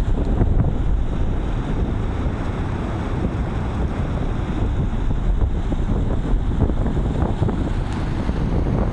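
Wind buffeting the microphone over the steady noise of surf and of muddy floodwater gushing up from a drain outlet on the beach.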